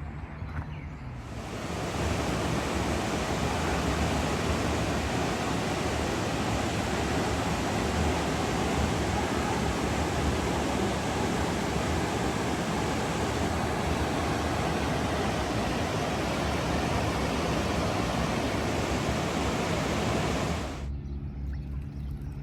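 Steady rushing water, like a fountain or small cascade, as an even hiss. It cuts in abruptly about a second in and stops just as abruptly near the end.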